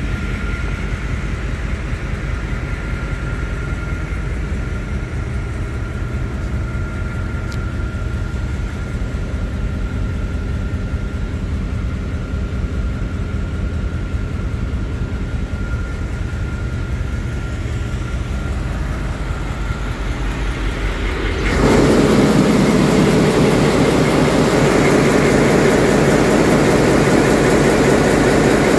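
Ship's engine room machinery heard muffled through the control room walls as a steady low drone with a faint thin whine. About 21 seconds in it turns suddenly much louder and fuller: the in-line main diesel engine running at close range in the engine room.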